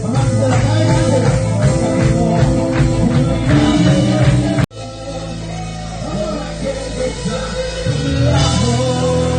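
Worship band music with singing. About halfway through it cuts out abruptly for an instant, then a different passage of music picks up.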